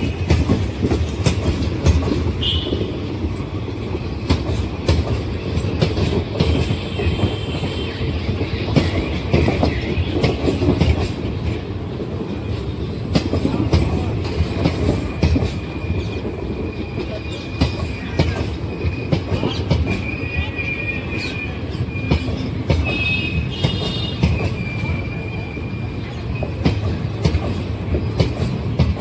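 Indian Railways passenger coaches rolling past close by: a steady rumble with repeated clicking of the wheels over the rail joints. A high wheel squeal comes and goes, mostly in the second half.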